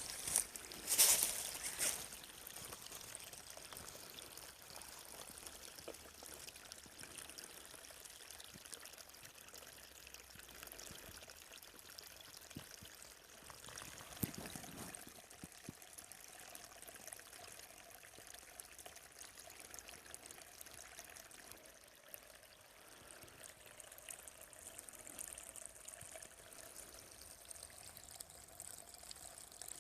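Small forest stream trickling steadily, with a short, louder burst of noise about a second in.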